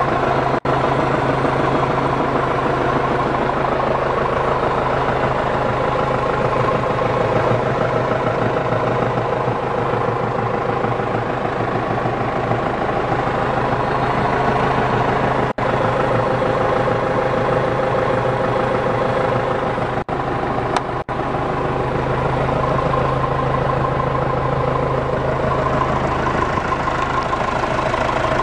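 John Deere 6410 tractor's four-cylinder turbo diesel engine running steadily at idle.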